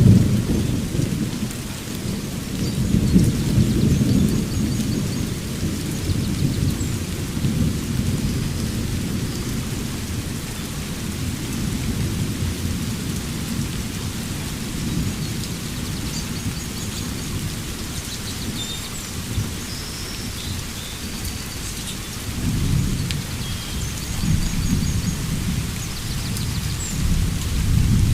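Steady rain with rolling thunder, the rumble swelling in the first several seconds and again near the end. Faint bird chirps come through now and then.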